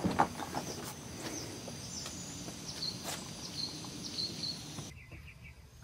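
Birds chirping in the background: short, high, repeated chirps that glide downward. There are a few light knocks in the first second. Near the end the background turns abruptly quieter, leaving groups of quick high chirps.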